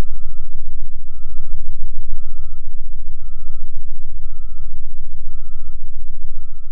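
Truck reversing, in a simulation of how it would sound on Mars: a reversing beeper sounding about once a second over a low engine rumble. It is muffled, with the high frequencies taken out, as Mars's thin carbon-dioxide atmosphere would absorb them.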